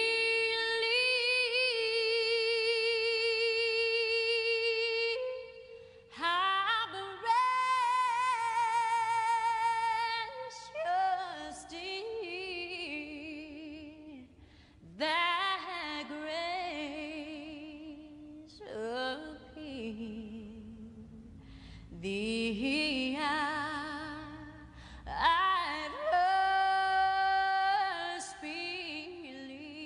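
A woman singing a slow song in long, wavering held notes, phrase after phrase with short breaks between them.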